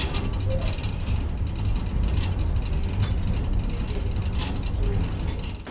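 Steady low rumble of a car ferry pushing through broken sea ice, heard from inside behind the glass, with a few sharp knocks and crunches about a second apart.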